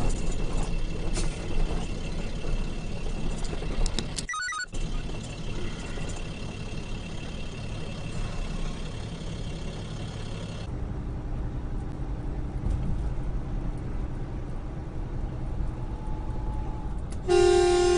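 Steady engine and road noise of a semi-truck heard from inside the cab, with a brief drop-out about four seconds in. Near the end a horn starts sounding and is held.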